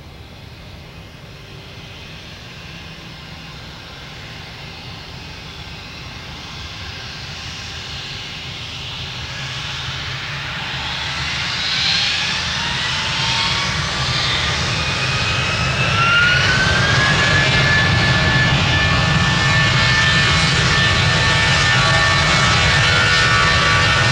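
Airbus A320's IAE V2500 turbofan engines spooling up to takeoff thrust on the takeoff roll. The jet noise grows steadily louder through the first two-thirds. Whines glide up in pitch and settle into a steady high whine as the engines reach full power.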